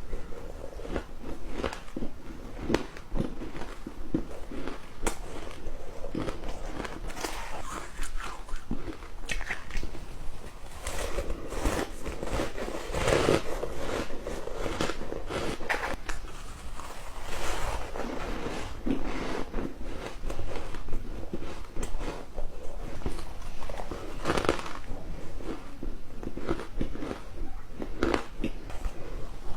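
Flaky ice being bitten and chewed close to the microphone: a steady run of crisp crunches and crackles.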